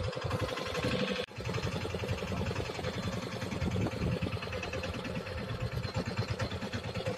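Fishing boat's engine running steadily with a fast, even pulse.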